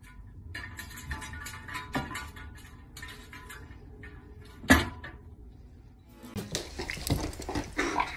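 Soft background music, then one loud thump a little past halfway. A run of knocks and scuffles follows near the end.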